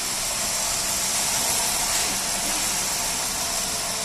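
Steady, even rushing noise with no clear tone, rhythm or knocks, like air or fan noise.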